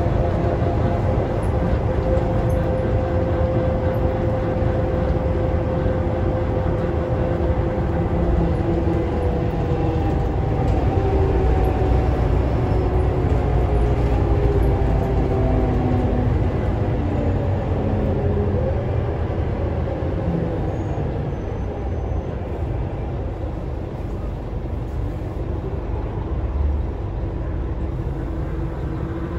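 Scania K320UA articulated city bus running along the road, heard from inside the cabin: steady engine and drivetrain drone over road rumble. A whine shifts in pitch about halfway through, and the whole sound gets a little quieter near the end.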